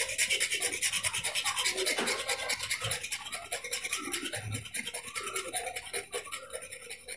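Utility knife blade scraping along an aquarium LED tube light in quick, even, rasping strokes, shaving off a hard white crust of calcium carbonate scale.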